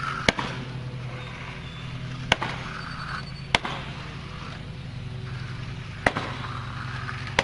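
A steady low engine hum, with five sharp clicks or knocks at uneven intervals.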